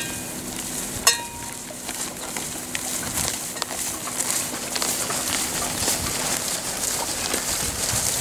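Civil War reenactors marching through grass: their footfalls mixed with the small clinks and rattles of their muskets and slung equipment, heard as many scattered light ticks.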